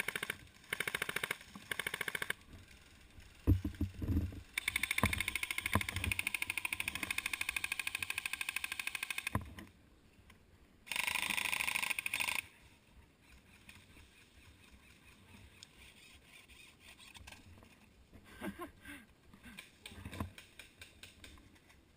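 Airsoft guns firing full-auto in rapid rattling bursts: several short bursts in the first two seconds, a long burst of about five seconds, then another short burst about eleven seconds in. A few dull thumps come around four seconds in.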